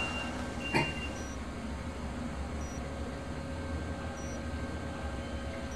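Hospital patient monitor beeping faintly, a short high beep about every second and a half, over a low steady hum. A single thump comes about a second in.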